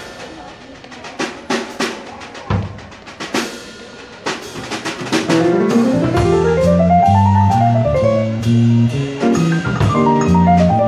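Jazz piano trio: for about five seconds the drum kit plays alone, sparse stick hits on drums and cymbals, then the bass and piano come back in, the piano running up and back down over a walking bass line.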